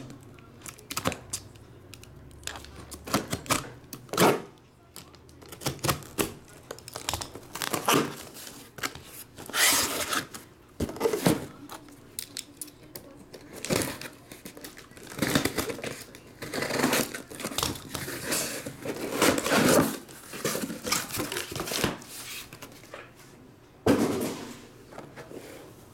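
Sealed cardboard shipping case being opened: a folding knife slicing through packing tape, then cardboard scraping and rustling in irregular bursts as the case is handled and lifted off the boxes inside, with a few sharp knocks as it is set down.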